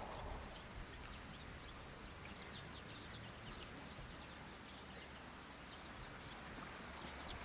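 Faint rural outdoor ambience with many short, high bird chirps repeating throughout. The last of a passing train's rumble fades out at the very start.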